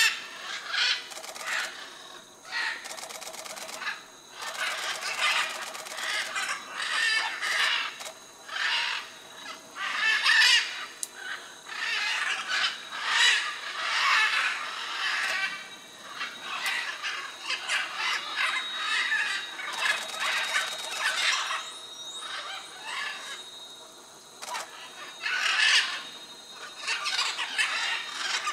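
A flock of macaws (scarlet, red-and-green and blue-and-yellow) calling, with many overlapping squawks coming in irregular bursts.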